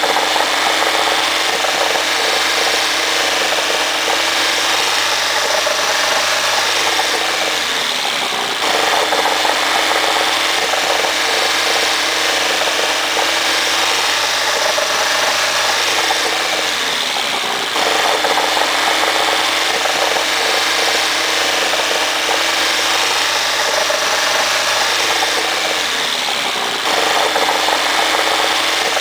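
Alfa Romeo 2000 Nord twin-cam four-cylinder engine running steadily with Colortune plugs fitted, its note sagging briefly and then picking back up three times at roughly nine-second intervals. Cylinder four is running lean.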